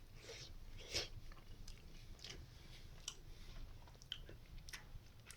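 A person chewing a mouthful of pizza: faint, irregular mouth and crust sounds, roughly one every half second to a second.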